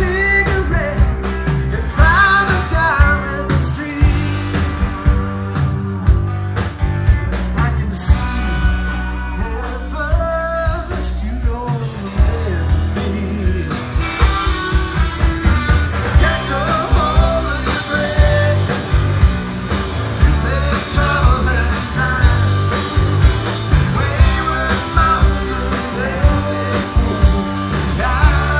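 Live psychedelic rock band playing: electric guitars, bass guitar and drums, with drum hits keeping a steady beat under bending guitar lines.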